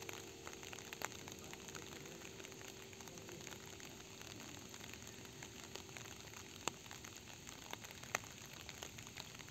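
Rain falling steadily and faintly, with individual drops hitting close by as sharp ticks now and then, the sharpest about seven and eight seconds in.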